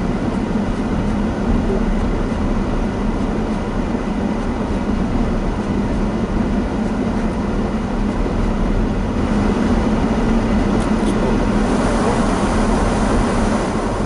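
Cabin noise of a Daihatsu Rocky 4WD driving on a snow-covered road: a steady rumble of tyres and running gear. A hiss grows louder about two-thirds of the way through.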